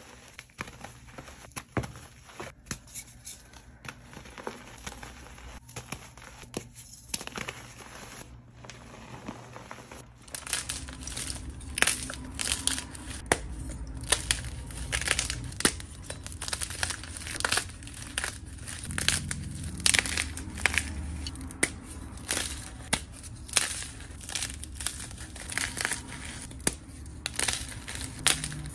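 Hands crushing dyed gym chalk. At first it is softer crumbling in loose powder. About ten seconds in it turns into louder, sharp crunches and snaps, several a second, as chalk blocks are broken apart between the fingers.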